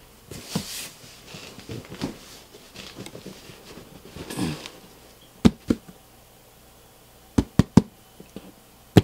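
Objects being handled in a small room: scattered light clicks and rustling, then a few sharp separate knocks in the last few seconds.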